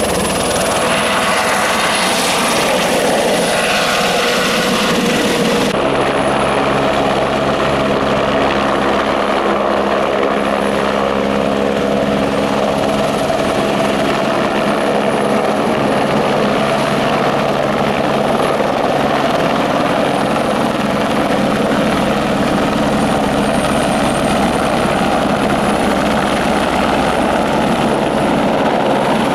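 Single-engine turbine helicopter, a Eurocopter AS350 Écureuil, running close by as it hovers and lifts off: a loud, steady rotor and turbine sound. Its tone changes abruptly about six seconds in.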